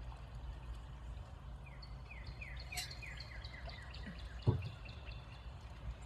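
A small bird singing a quick run of about ten downward-slurred chirps lasting a couple of seconds, over a steady low outdoor rumble. A single dull thump comes near the end.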